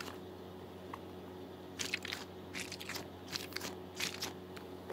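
A mesh stress ball filled with Orbeez (water-bead gel balls) being squeezed: several short, soft crackly squishes, starting about two seconds in.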